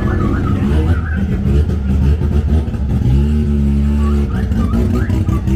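A classic car engine running loud, revved up and held for about a second roughly three seconds in, then dropping back.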